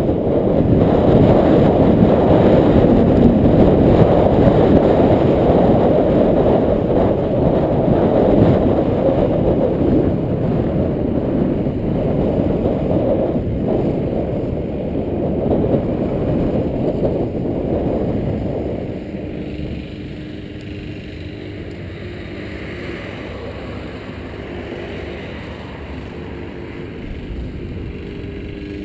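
Wind buffeting a handlebar camera's microphone as a bicycle rides along a cycle path. About 19 seconds in it drops to a quieter rumble with a faint steady hum as the bike slows near a cycle traffic light.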